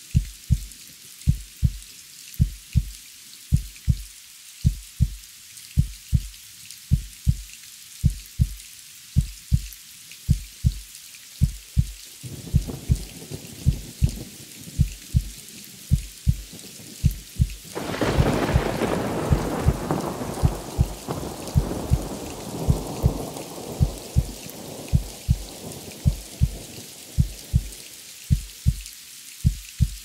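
A slow, steady heartbeat sound effect, low double thumps a little over once a second, over steady rain. Thunder rumbles in about twelve seconds in, cracks loudly near the middle and rolls away slowly.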